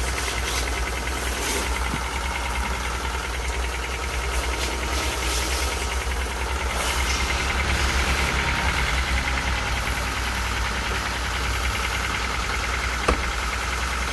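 Car engine running steadily, with one sharp click about thirteen seconds in.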